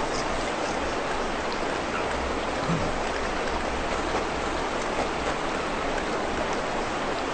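A steady, even rushing noise at a constant level, with a few faint ticks scattered through it.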